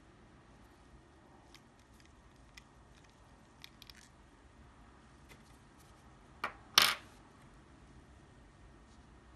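Faint clicks of a clear plastic TWSBI ECO fountain pen being handled, then two sharp clacks of hard plastic close together about six and a half seconds in, as a pen part is set down.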